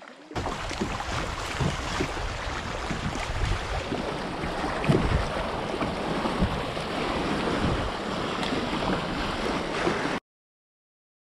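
Rushing, splashing river water around a kayak running through a riffle, with wind rumbling on the microphone. It cuts off abruptly to silence near the end.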